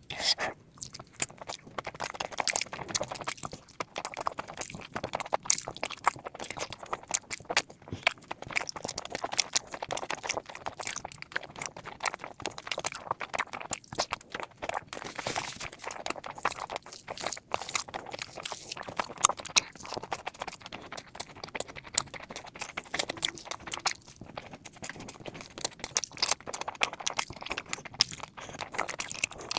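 A person chewing and smacking mouthfuls of mutton fat curry with rice, with many quick irregular clicks and crunches throughout.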